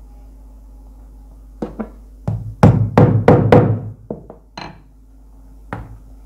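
A hammer striking a nail to punch holes through a stack of paper into a notebook beneath, on a wooden table. Two light taps come first, then a quick run of about six loud strikes, then a few lighter clicks and one more tap near the end.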